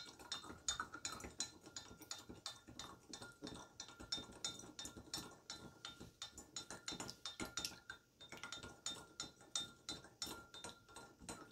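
Metal teaspoon stirring in a glass measuring cup, clinking lightly against the glass about five times a second, as salt and baking soda are stirred into water to dissolve.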